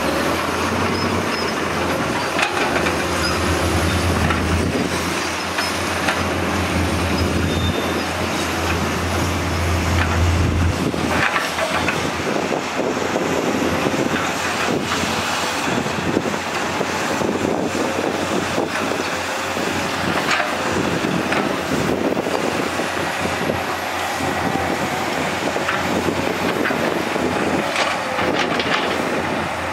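Komatsu PC210 hydraulic excavators' diesel engines running under load as they dig sand, with scattered clanks and knocks of bucket and tracks. A deep engine hum drops away about a third of the way through.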